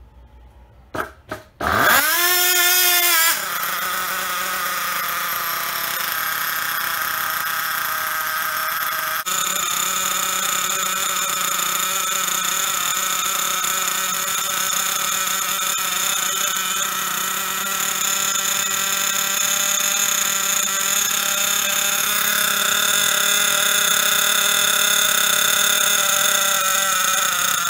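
Hyper 21 .21 nitro engine firing after a couple of short starter attempts, revving up briefly, then settling into a steady high-pitched idle. The engine is running again after being repinched with its missing 0.3 mm aluminium head shim added.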